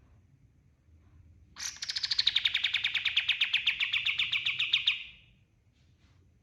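A kapas tembak songbird giving one rapid, even trill of about a dozen notes a second. It lasts about three and a half seconds and drops a little in pitch after its high start.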